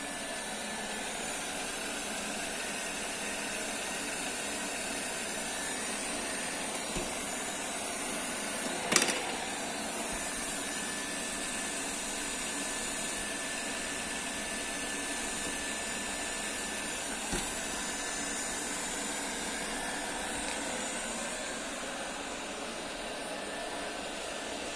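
Vestel V-Bot robot vacuum cleaner running: a steady whirring hiss with a faint held whine, broken by one sharp knock about a third of the way through and two fainter knocks.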